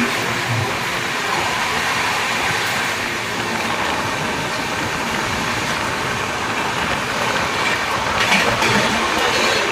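Express passenger train running at speed, heard from an open coach doorway: a steady rush of wheel-on-rail noise and wind, with a brief brighter hiss about eight seconds in.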